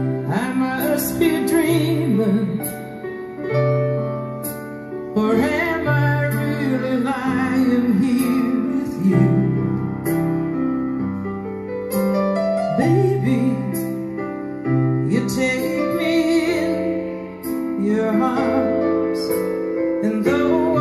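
A song with a woman singing over piano and keyboard, played back through a Technics SU-8080 stereo integrated amplifier and loudspeakers.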